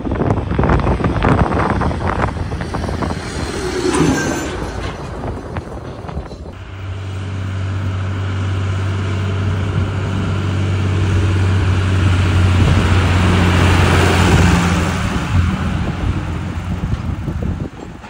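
John Deere tractor's diesel engine running as the tractor pulls a loaded straw-bale trailer past. For the first six seconds or so there is gusty rumbling. After that a steady low engine drone sets in, grows louder to about fourteen seconds in as the tractor passes, then fades.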